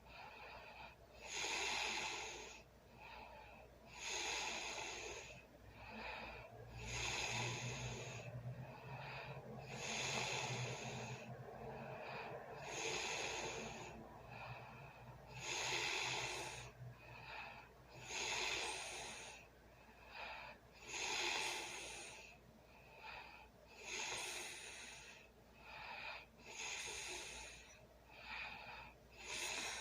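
A sleeping person's heavy, noisy breathing and snoring: a loud breath about every two and a half to three seconds, each followed by a shorter, softer one. A low hum runs under the breaths for a stretch in the first half.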